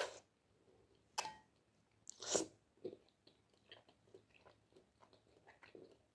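Close-miked eating sounds of jjajangmyeon, thick noodles in black bean sauce: a noodle slurp at the start, a sharp click about a second in, a louder slurp a little after two seconds, then soft wet chewing with small lip smacks.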